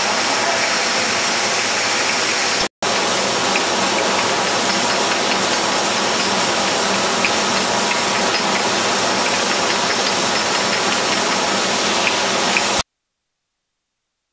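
Steady rushing noise of a bottling line with conveyors running, with a few faint ticks in the second half. It breaks off for an instant about three seconds in and stops abruptly near the end.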